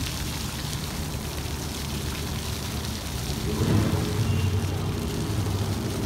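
Small ground-level fountain jets spraying and splashing onto wet paving, a steady patter, over a low rumble that swells about halfway through.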